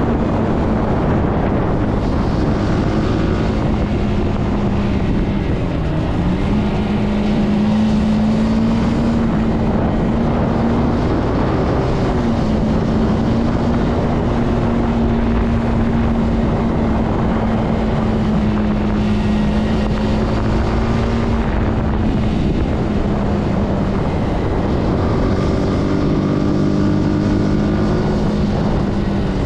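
Zontes C125 motorcycle engine running steadily under way, with wind noise on the microphone. The engine note dips briefly about six seconds in, again at about twelve seconds and near the end, then picks back up.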